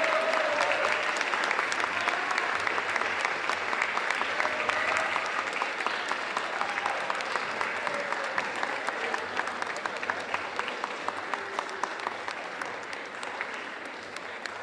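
Large audience applauding and cheering, a standing ovation for an award winner, slowly dying away toward the end.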